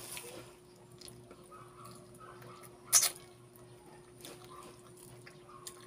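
Faint chewing and mouth sounds of someone eating chicken and rice by hand, with one sharp click about three seconds in and a faint steady hum underneath.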